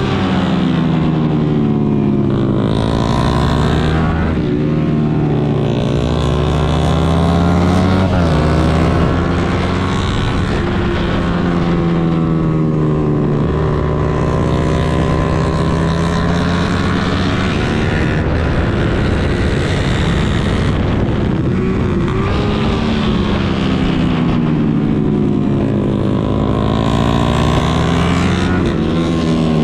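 Suzuki GSX-R150's single-cylinder engine revving hard around a track. Its pitch climbs under acceleration, steps down with each upshift and falls away under braking and downshifts, several times over.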